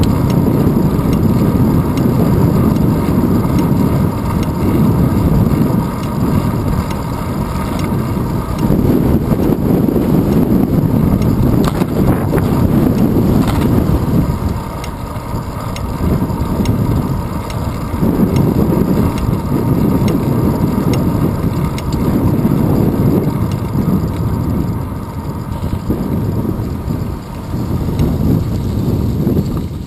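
Loud wind buffeting on a handlebar-mounted GoPro's microphone while cycling on asphalt, mixed with tyre rolling noise; the rush swells and dips every few seconds.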